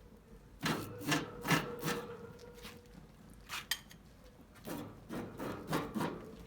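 Back-and-forth scrubbing strokes on a barbecue grill grate as it is cleaned with oil, about two strokes a second: a run of four, a pause, then another run near the end.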